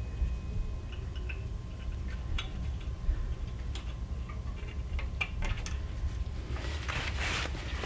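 Scattered light metallic clicks from front brake hardware being handled as the pad retaining springs are fitted back, with a short scrape near the end, over a steady low rumble.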